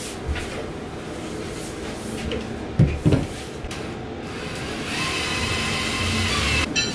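A wooden shelf board knocks a couple of times as it is handled, about three seconds in. Then, near the end, a cordless drill starts a steady whir as the shelf is fastened to the wall.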